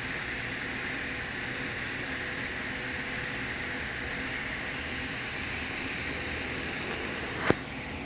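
TIG welding arc at about 130 amps on a Hastelloy C-276 pipe during a fill pass: a steady, even hiss. About seven and a half seconds in there is a sharp click, and the sound drops to a quieter hiss as the arc goes out.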